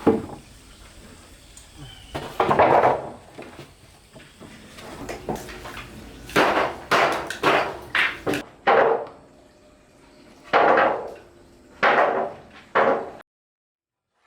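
Hammer blows on wood: about nine hard strikes at irregular intervals, each ringing briefly. The sound cuts off abruptly about a second before the end.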